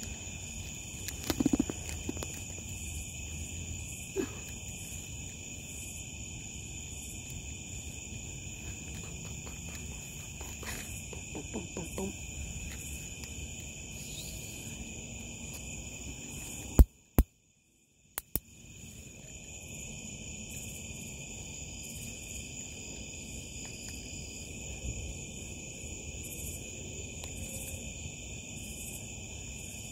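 Steady high-pitched chorus of crickets and other night insects. A few brief louder low sounds come near the start, and a little past halfway the sound cuts out for about a second and a half between sharp clicks.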